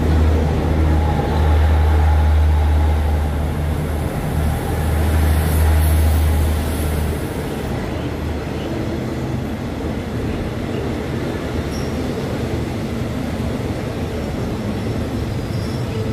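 A State Railway of Thailand diesel passenger train moving through the station. A strong low engine drone lasts for about the first seven seconds, then gives way to the steady rumble of coaches rolling past.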